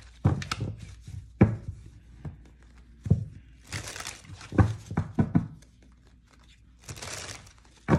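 Deck of reading cards being hand-shuffled: the cards tap and knock together and against the table, with two brief rustling swishes, about halfway through and near the end.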